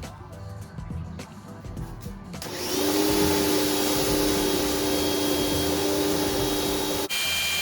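Chemical Guys ProFlow PM2000 electric pressure washer starting about two and a half seconds in and running steadily, a motor hum with a hiss of spraying water. It cuts off abruptly near the end.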